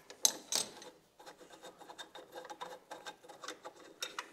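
Hand-tool handling: a 12 mm socket and the bolt just taken out with it clicking in the hand, two sharp clicks in the first second, then a run of faint quick ticks and rubbing.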